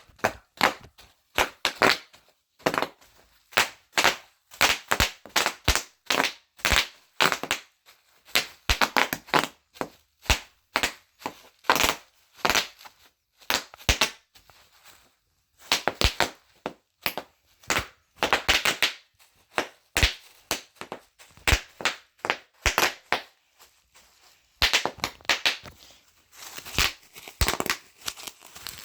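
Bubble wrap being popped by hand: an irregular string of sharp pops, several a second, with a few short pauses.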